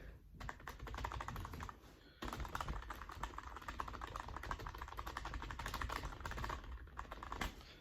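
Fast typing on a cheap wireless computer keyboard: a rapid, dense run of key clicks, with a brief pause about two seconds in.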